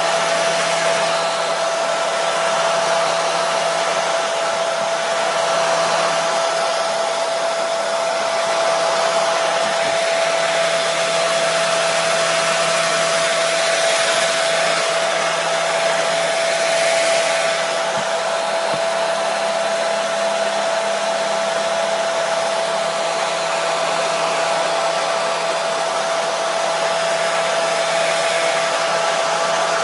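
Hair dryer running steadily: a continuous airy hiss with a steady motor whine.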